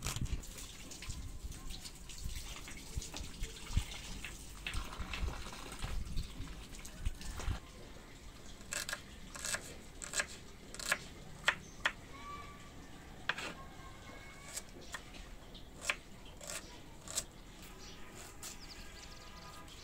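Kitchen knife knocking on a wooden chopping board as small red onions are diced by hand, in sharp, irregular single taps about a second apart.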